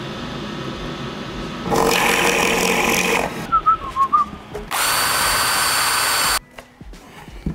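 Power drilling on a spruce cabinet door. A drill press runs, then bores into the wood for about a second and a half. After a short quieter gap with a few small squeaks, a cordless drill-driver whines steadily as it drives the screws of a concealed cup hinge, stopping abruptly about a second before the end.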